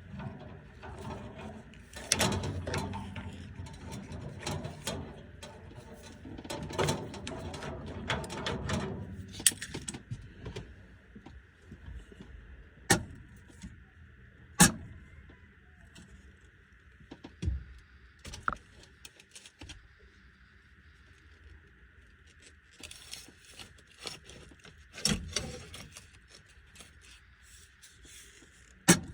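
Hand tools and metal fittings clinking, rattling and knocking while an evaporator coil's TXV is worked on, with a denser stretch of clatter early on and a few sharp single knocks later. A faint steady tone runs through the middle stretch.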